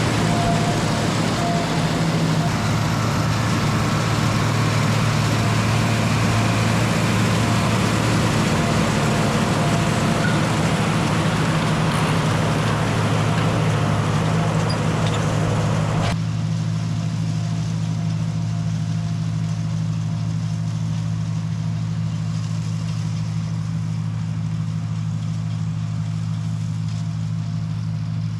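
Tractor engine running steadily under a broad mechanical clatter. The clatter cuts off abruptly about halfway through, leaving the engine running on its own.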